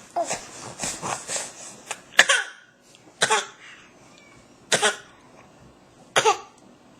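A baby coughing on purpose, trying out a newfound trick: a quick run of short coughs at first, then single coughs about every second and a half.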